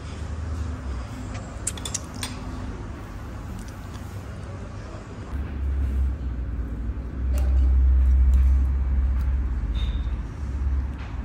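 A low rumble that swells louder about seven seconds in and eases off near the end, with a few light clinks about two seconds in.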